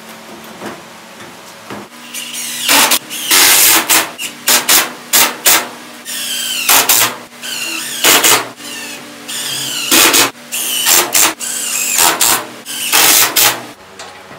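Power drill run in a string of short loud trigger bursts, starting about two seconds in, each with a high whine that drops in pitch as the motor spins down.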